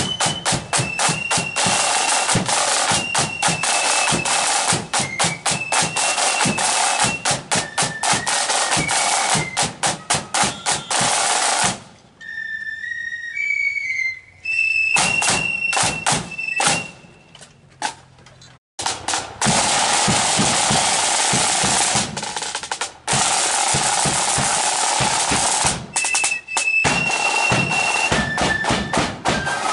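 Marching flute band playing: rapid side-drum rolls and beats with a bass drum under a melody on flutes. The drumming drops back for a quieter stretch in the middle, leaving the flutes more exposed, then the full band comes back.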